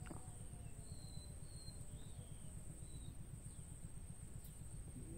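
Faint outdoor ambience: a few short, high bird chirps over a steady high-pitched insect drone and a low rumble.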